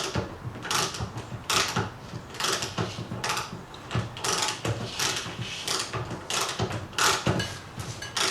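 Hand-operated chain hoist being worked, its ratchet pawl clicking about once every three-quarters of a second as the hand chain is pulled under the load of a wood splitter.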